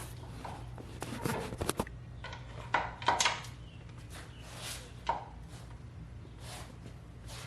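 Scattered metallic clanks and knocks of hand tools and suspension parts being handled and set down, over a steady low hum.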